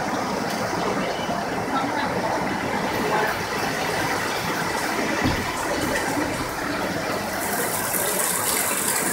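Heavy tropical rain pouring down steadily. The hiss turns brighter about seven and a half seconds in.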